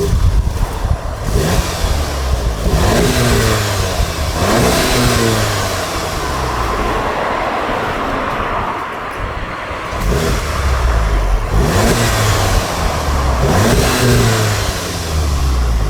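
VW MK7 Golf R's turbocharged 2.0-litre four-cylinder engine through a Milltek non-resonated sport exhaust, revved up in short blips that rise and fall three times. It settles to a steady idle for a few seconds in the middle, then is revved three more times.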